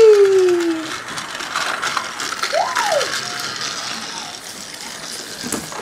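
Battery-powered TrackMaster toy engine running along plastic track, its small motor and gears giving a steady ratcheting whirr. A voice gives a loud falling cry at the start and a short rising-and-falling one near the middle.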